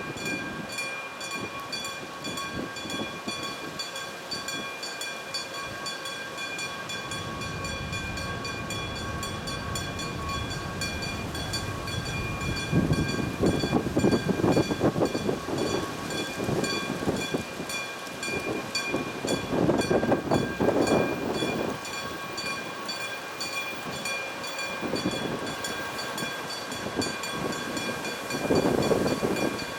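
Electric-bell level crossing ringing rapidly and steadily while an ND552 diesel locomotive hauling Nagoya subway N3000-series cars approaches and passes. Its rumble builds about a quarter of the way in and turns into loud, uneven wheel and rail noise from a little before halfway.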